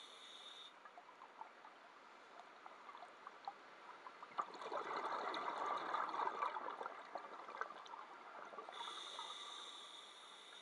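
Scuba regulator breathing underwater: a hissing inhalation at the start and again near the end, and between them a longer gurgling rush of exhaled bubbles. Faint scattered clicks run underneath.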